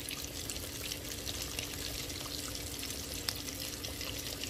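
Chicken wings coated in crushed Flamin' Hot Cheetos deep-frying in a pan of hot oil: a steady sizzle thick with small crackles and pops. A faint steady hum runs underneath.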